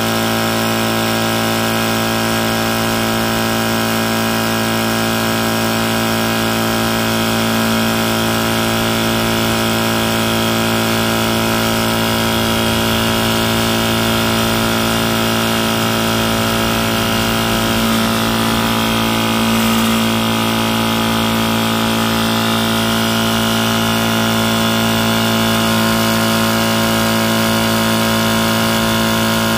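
Tuxing water-cooled high-pressure PCP air compressor running steadily, pumping up a tank with an even, unchanging drone.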